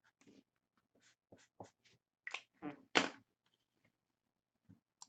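Scattered short taps and rustles of trading cards and card-break supplies being handled on a table, loudest around three seconds in.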